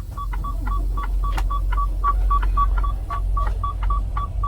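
Rapid electronic beeping inside a truck cab, short beeps at one pitch about four times a second, the kind of warning a truck gives while it is being manoeuvred close to obstacles, over the low rumble of the idling engine.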